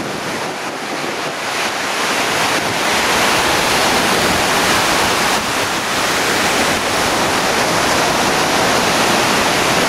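Surf breaking and washing on a beach as a steady rush, with wind buffeting the microphone; it swells about two seconds in and then holds.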